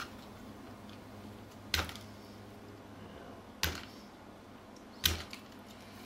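Three sharp clicks, a second or two apart, from an X-Acto hobby knife cutting back the plastic housing of a LiPo battery connector.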